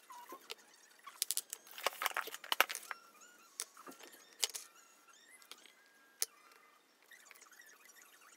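Small metal cabinet screws clinking and rattling in a plastic hardware bag as it is handled and tipped out, with crinkling plastic and sharp clicks. Busiest in the first three seconds, then only a few single clicks.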